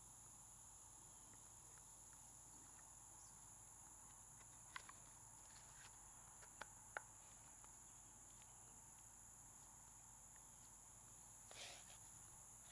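Near silence: a steady high insect drone, like crickets, with a few faint clicks in the middle and a soft rustle near the end.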